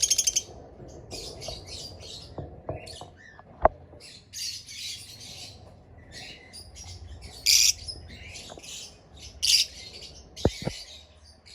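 Caged opaline parakeets chirping and squawking in short, high-pitched chattering bursts, with a sharp click about three and a half seconds in and two more near the end.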